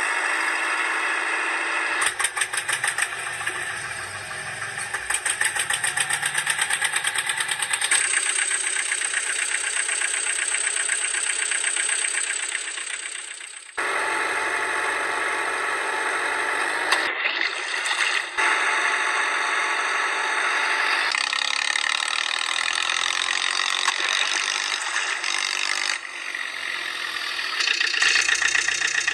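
Engine sound effects: a rattling vehicle engine running, laid over the picture in short segments that change abruptly every few seconds, with a steady high whine for a few seconds in the middle.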